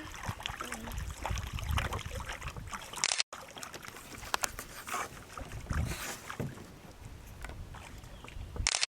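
Canoe being paddled across a lake: water sloshing and dripping, with scattered light knocks and a low rumble underneath. The sound cuts out completely for a moment about three seconds in and again just before the end.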